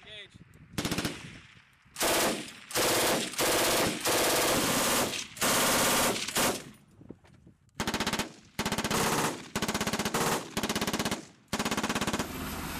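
M240 7.62 mm belt-fed machine gun, mounted at a helicopter door, fired in short bursts: about ten bursts of rapid automatic fire, each half a second to a second long, with brief pauses between. A steady rushing noise comes in just before the end.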